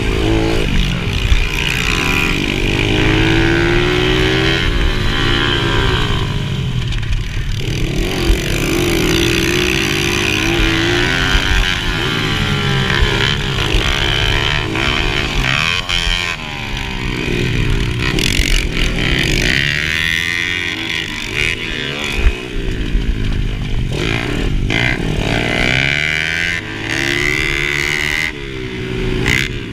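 Mini dirt bike engine under race load on a motocross track. It revs up and drops back over and over as the rider works the throttle and gears through the turns.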